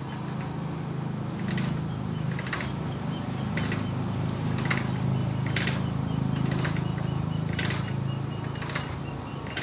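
Homemade engine-block cylinder honing machine running on its 1 hp electric motor: a steady low hum, with a short scraping knock about once a second as its hand lever is worked.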